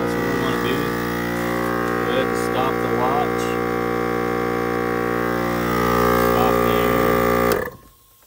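Viair 400P portable air compressor running steadily with a droning hum as it pumps four tires up toward 30 psi through a manifold. The hum cuts off suddenly near the end.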